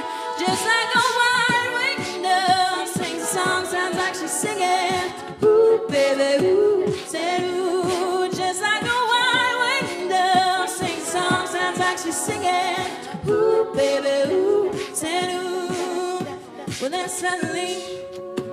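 Female a cappella ensemble singing close harmony behind a soloist, voices only, with wavering held notes over a steady vocal-percussion beat.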